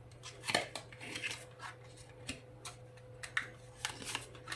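Tarot cards being drawn from the deck and laid out: an irregular scatter of soft taps, snaps and slides of card stock, over a faint steady hum.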